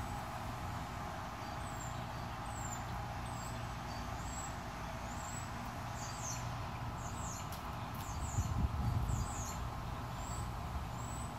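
Small songbirds giving short, high, falling chirps, one after another and thickest about halfway through, over a steady hiss. A brief low rumble comes about two-thirds of the way through.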